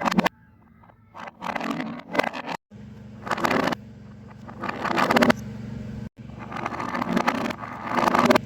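Fidget toys being handled: several short bursts of rapid crackling and clicking, each cut off abruptly, with a low steady hum underneath in the second half.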